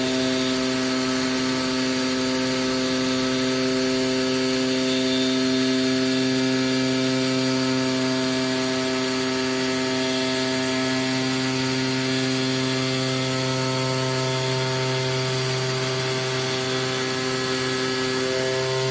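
AOKE DCZ70 CNC flatbed cutter running: a steady electric hum with a constant hiss behind it, holding one pitch throughout.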